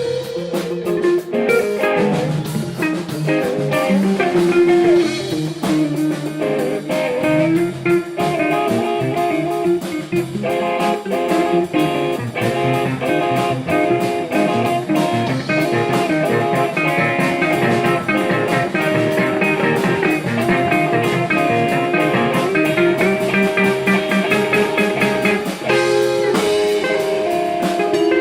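Guitar-led band music in a blues style, with a drum kit keeping a steady beat.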